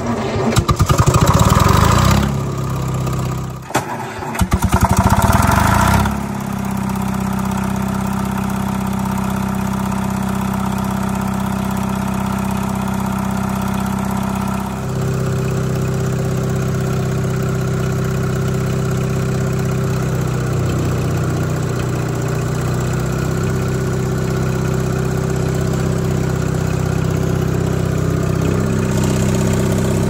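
Detroit Diesel 2-71 two-stroke diesel cranking and catching on a cold start, in two loud rhythmic bursts, then settling about six seconds in to run steadily; its note shifts about halfway through.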